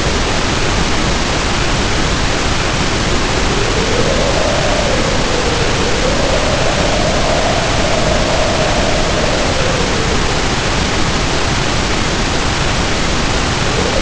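Storm sound effect: a steady, even rush of noise, with a faint tone drifting slowly up and down through it. No thunder claps.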